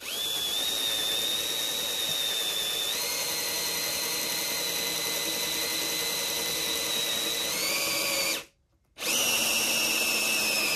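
Electric hand drill boring a bolt hole through an oak pallet-board deck plank and the steel frame under it: a steady high motor whine that stops briefly about eight seconds in, then restarts at a lower, slowly falling pitch, the drill motor running out of power.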